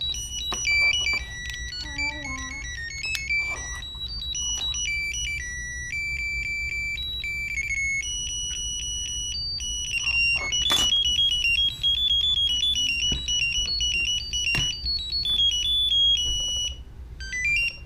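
Viper car alarm remote's buzzer playing a long run of quick high electronic beep tones, stepping up and down like a tune, as it powers up with its battery just fitted. A few sharp clicks from the plastic case.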